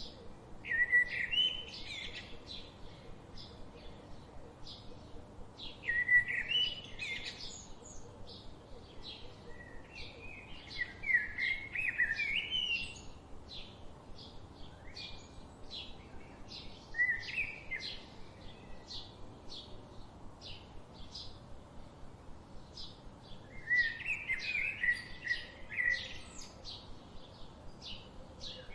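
Songbirds singing: a steady run of short high chirps about twice a second, with louder warbled song phrases breaking in every few seconds.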